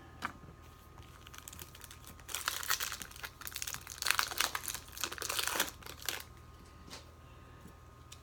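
Foil trading-card pack wrapper crinkling as it is handled, dense crackling for about four seconds, starting a couple of seconds in.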